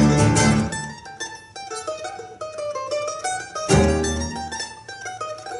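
Acoustic trio of mandolin, classical guitar and double bass playing. A full chord with bass opens it and comes back about four seconds in, with a thinner passage of quick single notes between.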